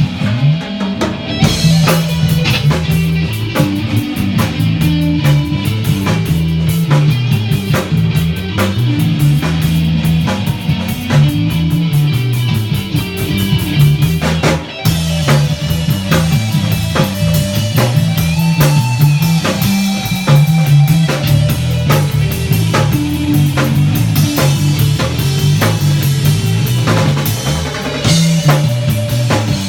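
Rock music: a drum kit keeping a steady beat under bass and guitar, with a momentary break about halfway through.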